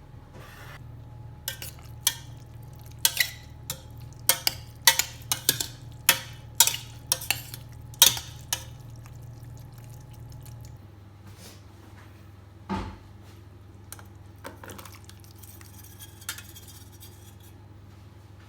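Kitchen utensils clinking against dishes: a quick run of sharp clinks in the first half, then a few scattered softer knocks.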